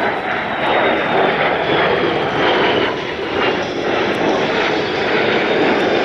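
Jet noise of a Kawasaki C-1 transport's two Pratt & Whitney JT8D turbofan engines as it flies past overhead, loud and steady, with a high whine that slowly falls in pitch.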